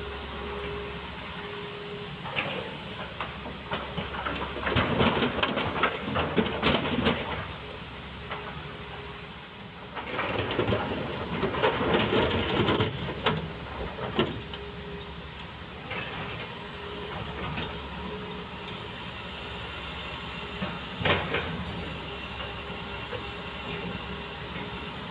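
Heavy diesel machinery running steadily while rocks are loaded into a dump truck. There are two loud spells of rocks clattering and rumbling, each a few seconds long, about five and ten seconds in, and a single sharp knock near the end.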